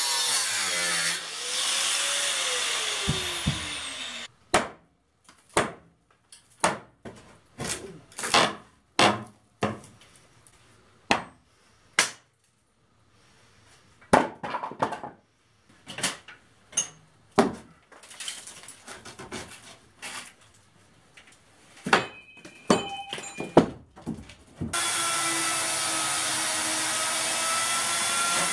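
Angle grinder with a thin cut-off disc cutting metal in an old overhead timber beam, then winding down with a falling whine over about two seconds. A long string of sharp single knocks on the old wood follows, and near the end a cordless power tool starts up and runs steadily.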